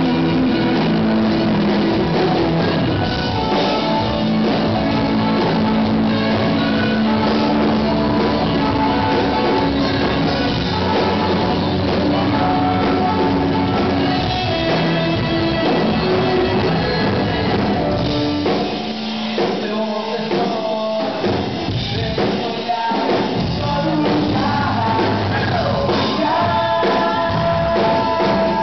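Live rock-fusion band playing a song with singing, guitars, saxophone, bass and drum kit, heard from the audience. About two-thirds of the way through, the low end drops out to a few separate hits for a few seconds, then the full band comes back in.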